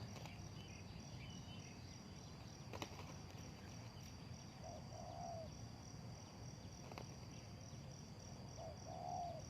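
A spotted dove cooing twice, about four seconds apart, each call a short low note followed by a longer one. Insects trill steadily and high behind it.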